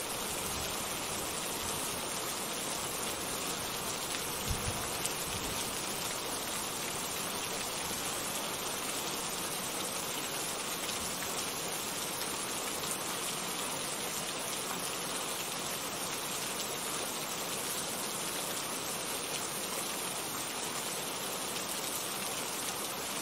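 Steady rain falling, an even hiss with no let-up. Two faint low thuds come about four and a half seconds in.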